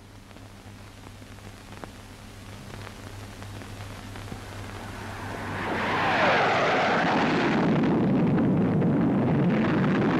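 Hawker Hunter jet fighter making a low pass: its jet noise swells from faint to loud over the first six seconds, then falls in pitch as it goes by and keeps up a steady loud rush. A low steady hum from the old film soundtrack runs underneath.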